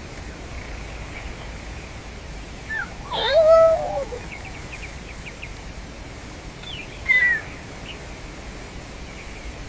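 A few animal calls over a steady outdoor background: a short call, then a louder pitched call that rises and falls about three seconds in, a row of faint short chirps, and a falling call about seven seconds in.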